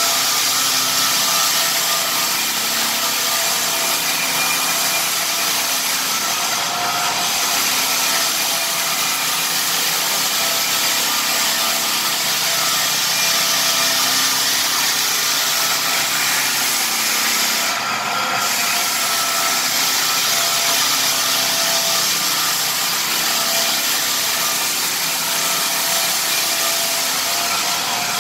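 Lägler Hummel drum floor sander running under load, sanding a red oak floor: a steady motor whine over a strong hiss of abrasive and dust extraction, the hiss dropping out briefly twice.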